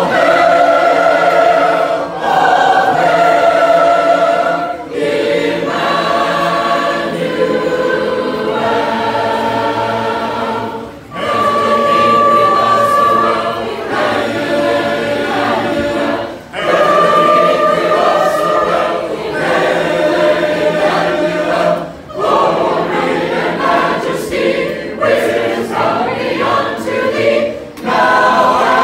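A large congregation of men, women and children singing a hymn together as a choir, unaccompanied, with brief breaks between phrases every few seconds.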